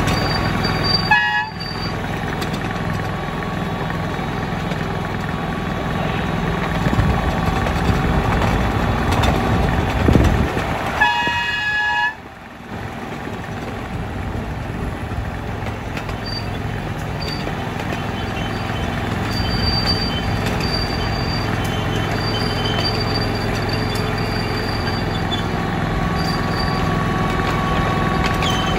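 Petrol engine of a 7.25-inch gauge miniature Victorian Railways T Class locomotive running steadily as it hauls a ride-on train along the track. A horn sounds briefly about a second in and again for about a second around eleven seconds in.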